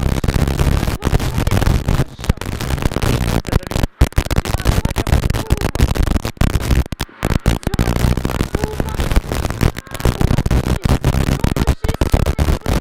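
Rally car driven hard on a stage, heard from inside the cabin: engine running at high revs under heavy road and tyre noise. The sound is loud, harsh and distorted, with brief dropouts to silence, the sign of an overloaded onboard microphone.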